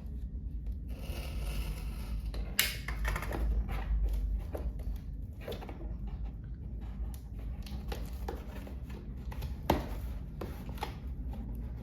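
Cardboard box packaging being handled and opened: irregular rustling, scraping and sharp clicks, with two louder snaps about two and a half seconds and nearly ten seconds in.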